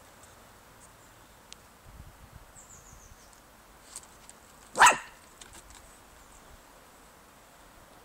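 Jack Russell terrier giving a single short, loud bark about five seconds in.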